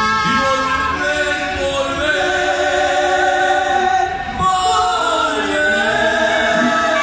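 Live mariachi band playing, with trumpets and violins holding notes in harmony over the guitars.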